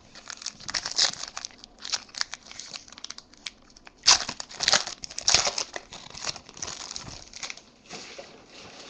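Foil wrapper of a trading card pack being torn open and crinkled, crackling in irregular bursts, loudest about four seconds in.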